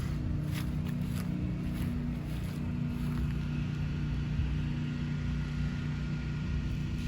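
An engine running steadily with a low, even hum. A few light clicks come in the first two seconds.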